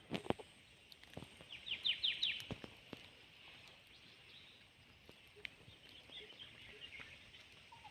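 Quiet outdoor ambience with a bird giving a quick run of about six short falling chirps about two seconds in, and a few fainter chirps later. A few scattered sharp clicks.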